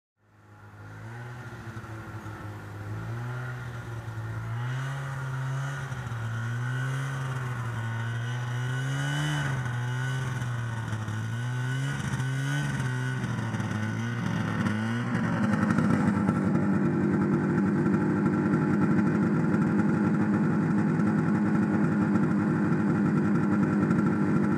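Kohler 295 two-stroke engine of a 1974 John Deere 300 snowmobile running. Its pitch rises and falls with the throttle over the first fifteen seconds or so, then it runs louder and steadier.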